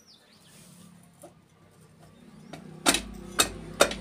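Three sharp metallic knocks in the second half as a 100 cc Hero Honda engine's crankshaft is pushed and seated into its bearing in the crankcase. A bird chirps faintly before them.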